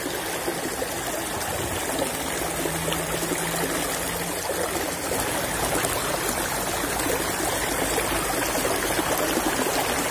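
Water running steadily down a small, shallow irrigation channel, an even rushing and trickling over the riffles.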